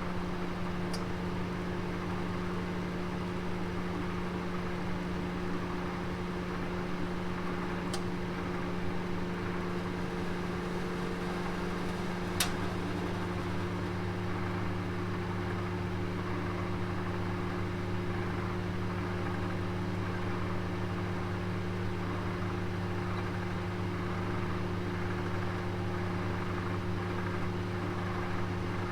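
An oven running with a roast inside, giving a steady hum; a lower hum joins about twelve seconds in. There are a few faint ticks, the sharpest about twelve seconds in.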